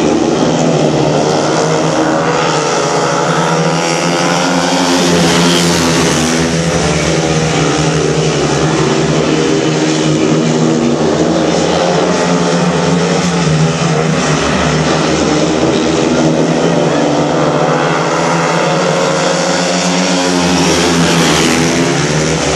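Four speedway motorcycles racing round a shale oval, their single-cylinder 500 cc methanol engines running loud and continuous, the pitch wavering up and down as the riders throttle through the bends and straights.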